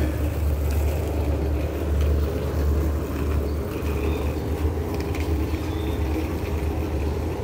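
Diesel locomotive engine running with a steady low rumble.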